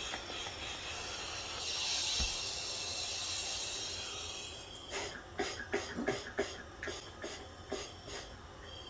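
Compressed air hissing from a free-flowing scuba regulator, a sign that it needs repair; the hiss fades out about halfway through. Then a run of irregular light clicks and knocks.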